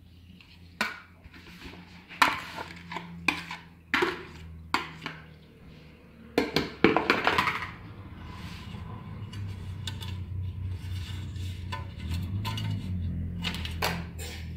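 Sharp clinks and knocks of a bowl and kitchenware being handled, about eight in the first half. They give way to a steady low rubbing rumble as the cheesecloth holding the soaked lemon peels is handled and gathered up.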